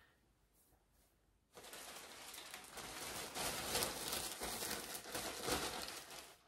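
Crinkling and rustling of something being handled close by, starting about a second and a half in and stopping just before the end.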